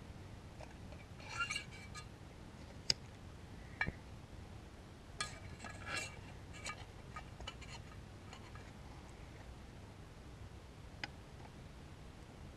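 Small metal camp cooking gear being handled: scattered light clicks and clinks, with two brief bouts of ringing clinks about one and a half and about six seconds in.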